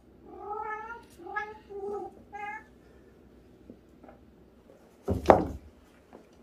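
A cat meowing four times in quick succession, then a loud, short knock about five seconds in.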